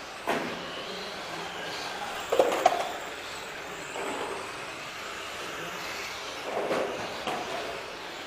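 Radio-controlled touring car running on a track, a steady hiss of motor and tyres, with a few short knocks; the loudest come in a quick cluster about two and a half seconds in.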